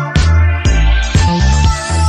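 Background music with a heavy bass beat, about two beats a second.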